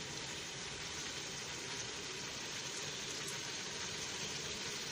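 Beef and chopped red onion sizzling steadily in oil in a cooking pot.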